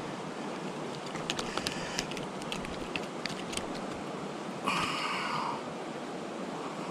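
Creek water running steadily, with a scatter of small sharp clicks in the middle and a short, louder higher-pitched sound about five seconds in.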